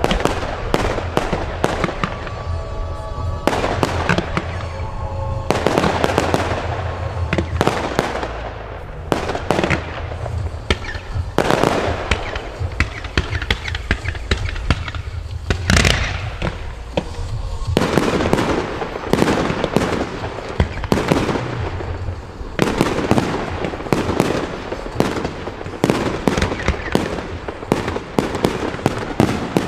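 Consumer firework batteries firing in rapid, continuous succession: a dense stream of launch thumps and crackling bursts, many shots a second.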